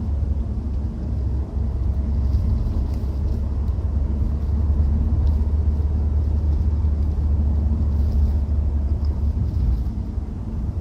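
Citroen C4 driving, a steady low rumble from the engine and drivetrain with a fainter drone above it. This is the running condition in which the owner hears a strange noise from the front/under the car, which goes silent when the clutch is pressed.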